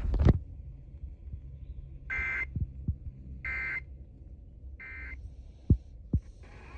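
Emergency Alert System end-of-message data bursts: three short bursts of buzzing two-tone digital data, about a second and a half apart, closing the broadcast warning. Under them runs a low hum from the station's degraded audio, with a loud crackle right at the start and two low thumps near the end.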